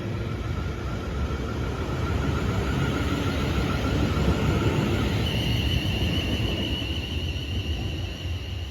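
Class 444 Siemens Desiro electric multiple unit pulling away from the platform: a steady rumble with an electric whine that steps up to a higher pitch about five seconds in as the train accelerates.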